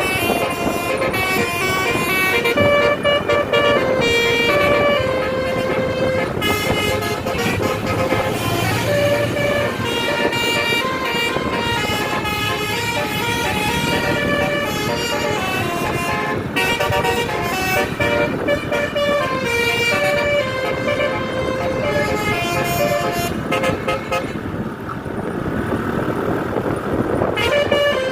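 Tour bus 'telolet' multi-tone horn playing tune after tune of quickly changing notes over a low rumble.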